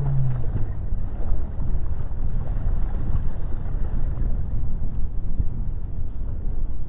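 Boat under way while trolling: a steady low rumble of motor and water noise.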